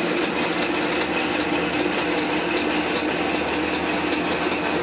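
Hendey eight-speed engine lathe running: a steady mechanical whir from its motor and gear train, with a constant hum and a thin high whine over it.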